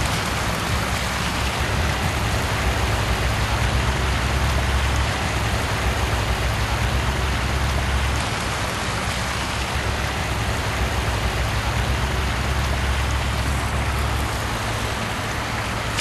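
Steady rush of water where a stream flows into a shallow creek, with a low rumble underneath that eases near the end.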